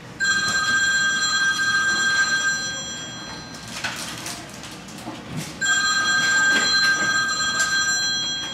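A mobile phone hidden under a hall table playing an old-style telephone ringtone, so that it sounds as if the unplugged vintage rotary phone is ringing. Two rings of about three seconds each, about two seconds apart.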